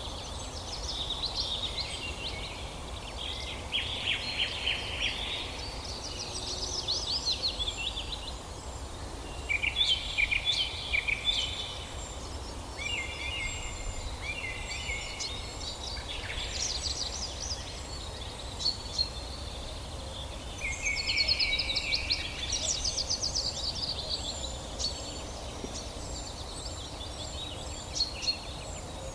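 Several songbirds singing at once, with overlapping trills and chirped phrases, while short high notes repeat steadily in the background. A steady low rushing noise lies underneath.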